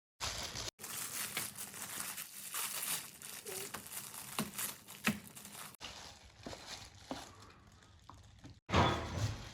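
Gift wrapping paper crinkling and tearing as a present is unwrapped, with scattered sharp clicks. The sound breaks off abruptly a few times.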